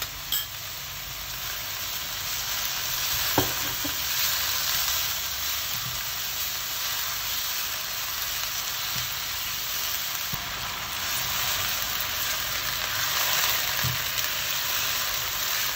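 Chopped onions with grated ginger and garlic sizzling in hot oil in a nonstick pan while being stirred with a silicone spatula: a steady frying hiss with a few short knocks and scrapes of the spatula on the pan.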